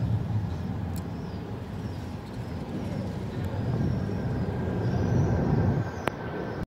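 Low, steady jet rumble of a twin-engine widebody airliner passing high overhead, swelling a little before one sharp click near the end.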